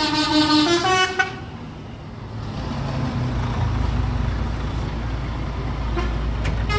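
A tourist bus's 'telolet' musical horn plays a tune of changing notes, then cuts off about a second in. The low rumble of the bus engine follows and swells slightly a second or so later.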